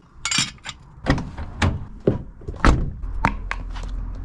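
Irregular knocks and clunks of hard tools and equipment being handled and set down, about eight in four seconds, the loudest a little past the middle.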